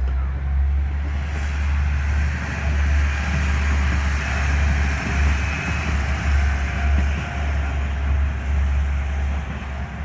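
A train passing over a level crossing: a heavy steady rumble with rail and wheel noise that swells a second or two in and fades near the end.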